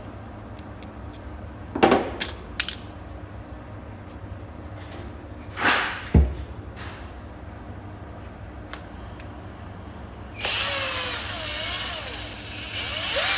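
A few sharp metallic clicks and a knock from a Zippo lighter being handled, then about ten seconds in a small power tool starts whirring steadily, its pitch wavering up and down.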